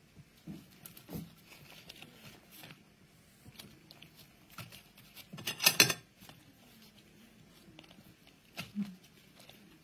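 Banana-leaf wrapping of a steamed rice dumpling being peeled open by hand: soft intermittent crinkling and rustling of the leaves, with a louder, sharper crackle a little past halfway.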